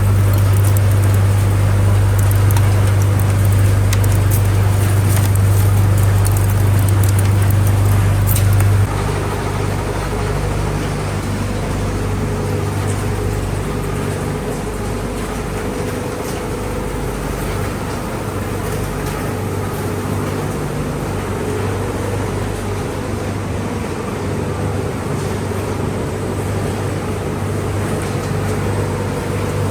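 Appliance recycling line machinery running: a steady, loud low hum and rumble, with scattered clicks and rattles over the first nine seconds or so. The hum then drops off suddenly, and steady machine noise carries on.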